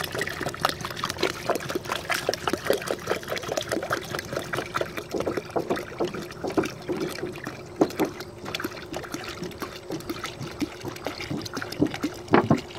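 Water pouring from a plastic gallon jug into a partly filled collapsible fabric tub, splashing without a break.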